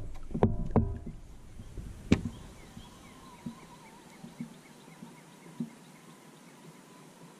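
A few sharp knocks and clunks in the first couple of seconds, likely gear handled against the kayak, then quiet open-air ambience with a few light ticks and faint bird calls.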